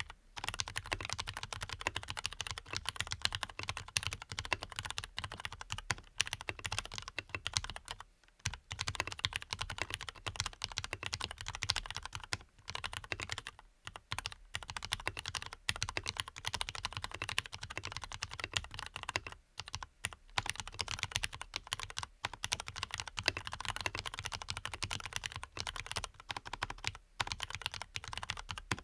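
Steady, fast typing on a Leopold FC660MBT mechanical keyboard with lubed Cherry MX Black linear switches, switch films and a foam-dampened case. It is a dense run of key clacks, broken by brief pauses every few seconds.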